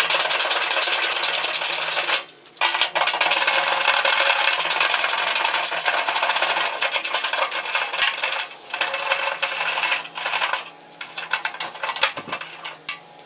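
Cordless power driver spinning out the 10 mm bolts that hold a tailgate handle: a loud, fast mechanical rattle over a steady motor hum, in several runs with brief stops about two seconds in and again past eight seconds, becoming patchier near the end.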